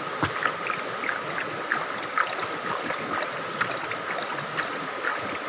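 Water sloshing and splashing over a wooden gold pan (dulang) as it is worked in shallow river water, with irregular small splashes over the steady rush of the stream. This is the washing stage of hand gold panning, leaving the black sand on the pan.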